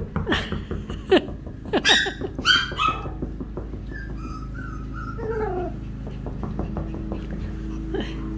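Schnauzer puppies yipping in short, high, falling yelps over the first three seconds, then a few falling whimpers a little later.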